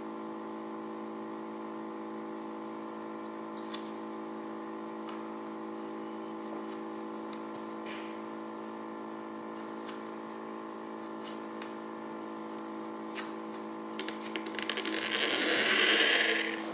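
A spinning top on a magnetic stirrer: a steady whirring hum with scattered sharp clicks. Over the last two seconds a loud rattling buzz swells up and then eases.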